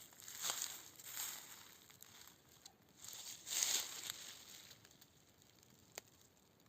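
Irregular rustling and crunching in a few separate bursts, the loudest about three and a half seconds in, fading away afterwards, with one sharp click near the end.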